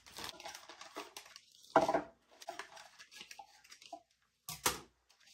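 Handling noises as a fiberglass cowl is unwrapped: packing material rustling and crinkling, with scattered light clicks and two louder knocks, about two seconds in and near the end.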